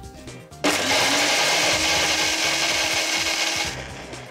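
Electric blender running for about three seconds, grinding the toasted sesame seeds, almonds and pumpkin seeds with pork stock into a mole paste. The motor spins up suddenly and runs steadily, then winds down near the end.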